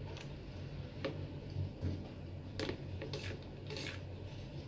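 Close-up eating sounds from someone eating rice and fish by hand: soft mouth clicks and smacks while chewing, a few short clicks roughly a second apart with a couple of brief rustles, over a low steady hum.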